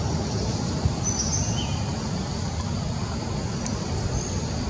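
Steady low rumble of wind buffeting the microphone outdoors, with a few brief high chirps from birds, one about a second in and another near the end.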